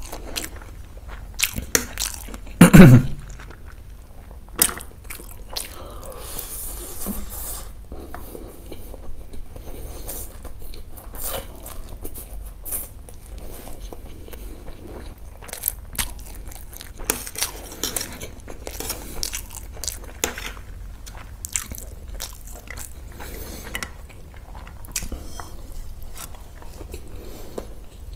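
A person eating close to the microphone: biting, crunching and chewing fried food in a run of short, uneven crunches and clicks. A single brief, loud thump comes about three seconds in.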